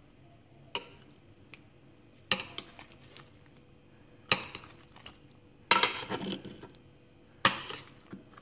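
A metal spoon clinking and scraping against a glass baking dish of roasted chicken and its juices, in five separate bursts, the longest about six seconds in.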